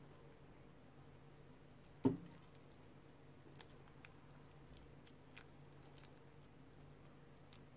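Faint crinkles and small clicks of a paper bubble-gum wrapper being peeled and unfolded by hand, with one sharp knock about two seconds in.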